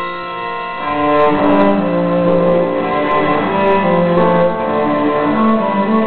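Instrumental music on bowed strings, several held notes sounding together; lower, sustained string notes come in about a second in and the music grows fuller and louder.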